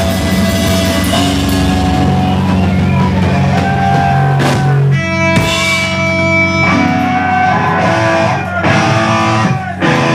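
A punk rock band playing loud and live: distorted electric guitar, electric bass and drum kit.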